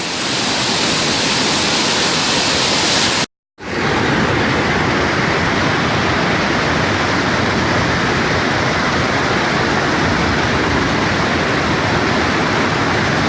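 Fast-flowing river water rushing, swollen by heavy rain: a loud, steady noise of water. It breaks off for a moment a little over three seconds in and resumes with a deeper sound.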